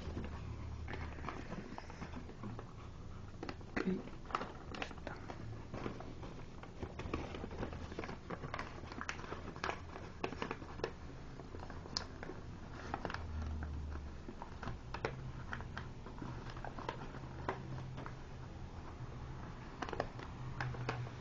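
A sheet of origami paper rustling and crinkling as it is handled and worked onto a crease line, with irregular small crackles and clicks from the creasing.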